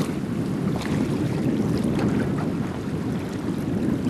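Wind buffeting the microphone in a steady low rumble, with faint splashing of choppy water.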